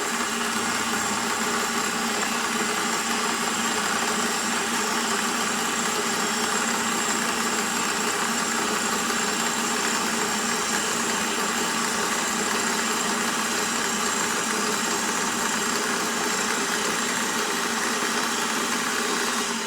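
Milling machine running steadily, its cutter taking a pass through steel bar stock, a continuous machine hum with several steady tones and a high hiss. It cuts off suddenly at the end.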